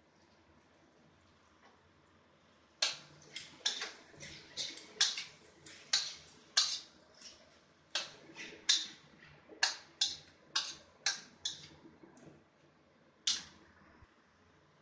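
Metal spatula scraping and knocking against a steel wok as a tempe and green chilli stir-fry is tossed. It starts about three seconds in, with quick irregular strokes about two or three a second, and one last stroke near the end.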